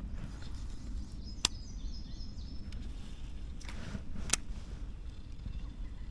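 Steady low outdoor rumble of wind and water around a kayak on a lake, broken by two sharp clicks, one about a second and a half in and one about four seconds in. Faint high chirping comes around the first click.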